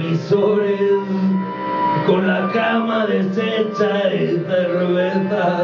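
Live music with held, droning notes that change pitch every half second to a second.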